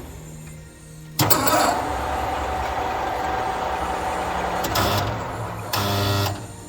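16B05 screw-cutting lathe starting up about a second in and running steadily with a held whine, with two louder clattering surges near the end.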